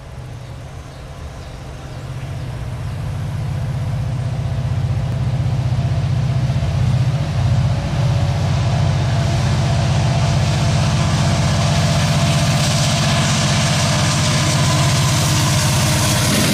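EMD SD70M-2 diesel locomotive's two-stroke V16 prime mover running as it approaches: a low engine drone that grows louder over the first few seconds and then holds steady. A hiss of wheels on rail rises in the last few seconds as the locomotive draws level.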